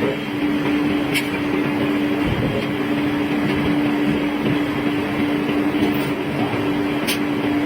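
Forging-shop machinery running with a steady hum over a noisy mechanical wash, with a sharp click about a second in and another near the end.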